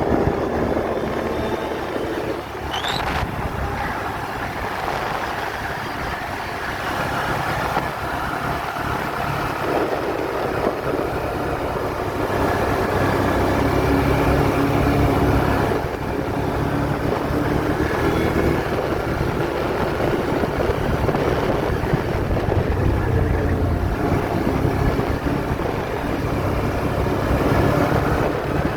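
ATV engine running under way, its note rising and falling with the throttle over a continuous low rumble.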